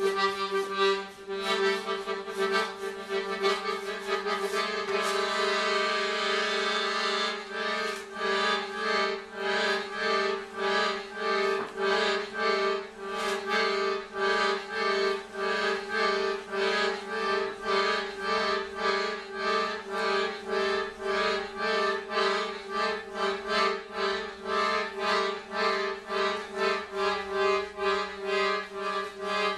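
Piano accordion holding a low drone under reedy chords. Sharp clicks of tap shoes on the stage floor come over it in the first few seconds, and from about eight seconds in the chords pulse in a steady rhythm of about two a second.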